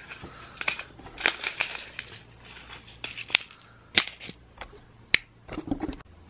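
Sharp clicks and short rattles of small plastic diamond-painting gems and tools being handled and tapped, about a dozen irregular clicks, the loudest about four and five seconds in.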